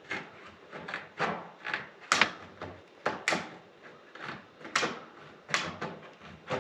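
Hand saw strokes cutting, a steady back-and-forth of short rasping strokes, about two a second.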